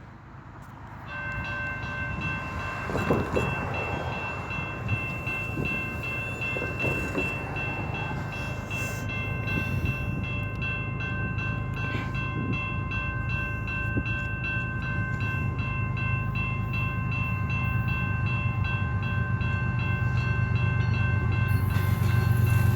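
Level-crossing warning bells ringing steadily from about a second in, pulsing about twice a second, as an approaching CN train's low rumble grows louder toward the end.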